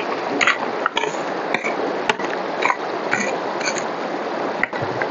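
A small hand pick strikes and scrapes into gravelly soil and stones, in short blows about every half second. The steady rush of a nearby stream runs underneath.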